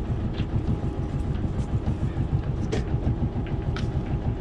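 Sailboat's engine running steadily at low speed as the boat motors in to dock, a low, fast-pulsing rumble. A few light clicks and knocks from a fender being handled over the side rail.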